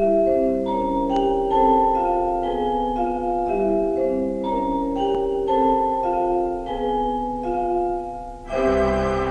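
4/23 Howell-Wurlitzer theatre organ playing an opening in chords of held notes that change about every half-second. About eight and a half seconds in, a fuller registration with deep pedal bass comes in.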